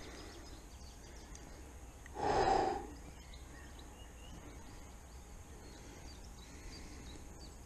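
A single short exhale of breath about two seconds in, over a faint steady outdoor background.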